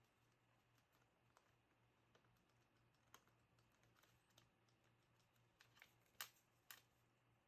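Faint, irregular light clicks and taps of a sparrow's beak pecking at a finger, the loudest two near the end, over a faint steady low hum.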